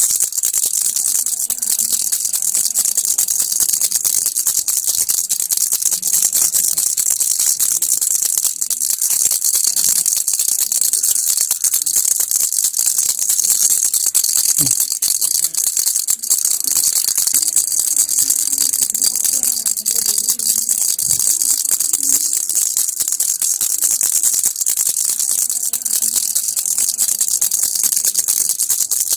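Baby rattle (kilukki) shaken without pause, a dense, steady, high rattling hiss.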